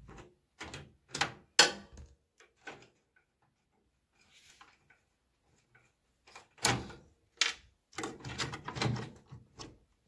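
Screwdriver clicking and scraping on a screw and the microwave oven's sheet-metal chassis as the screw holding the door-switch bracket is taken out. Then a louder run of knocks and clatter from hands handling parts inside the metal cabinet, about six and a half seconds in and through the last few seconds.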